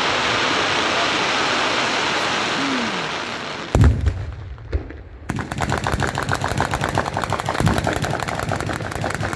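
A steady rushing crackle from the tail of aerial shell bursts, then a single loud bang a little under four seconds in. About five seconds in, a ground-level 'batteria alla bolognese' of firecrackers starts firing: a fast, unbroken run of sharp cracks.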